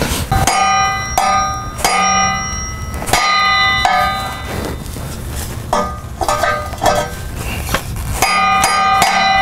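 Hammer blows on the steel exhaust pipe at the catalytic converter joint: about ten sharp, irregular strikes, each leaving a bell-like metallic ring. The hammer is being used to knock loose a tight-fitting converter joint.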